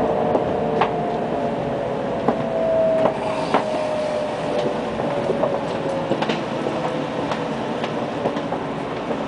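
Running noise heard inside a JR Kyushu N700 series 8000 Shinkansen car as the train moves slowly through the station, with a steady tone that slowly falls in pitch and scattered sharp clicks from the wheels on the track.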